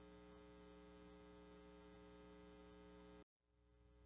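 Near silence with a faint, steady electrical mains hum in the recording, which drops out for an instant a little after three seconds in.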